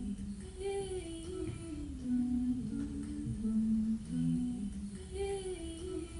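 A voice humming a slow, wordless melody of held notes, one short phrase repeated.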